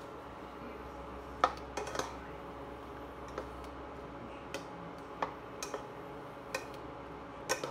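Green plastic spatula knocking and scraping against a non-stick pan while stirring vegetables and pork: a string of irregular sharp clicks, the loudest about a second and a half in.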